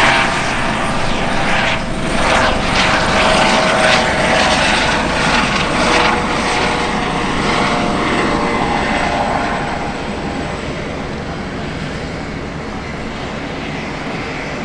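MH-65 Dolphin helicopter passing close: its twin turboshaft engines whine with steady tones over a rapid beat of rotor blades, loud for the first ten seconds, then fading to a lower steady level as it flies away.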